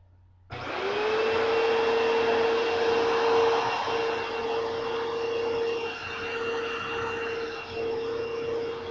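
Dirt Devil Featherlite upright vacuum's 12-amp motor switched on about half a second in, quickly spinning up to a steady pitch and running with a constant whine over the rush of air.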